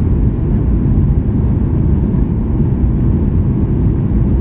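Steady cabin noise inside a jet airliner on approach to land: an even, low rumble of engines and rushing air.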